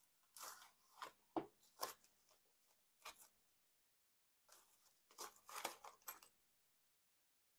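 Quiet crinkling, rustling and tearing of a plastic bubble mailer being opened and emptied, in short crackly bursts. After a pause near the middle there is more plastic crinkling, from a small plastic zip bag of knife hardware being handled.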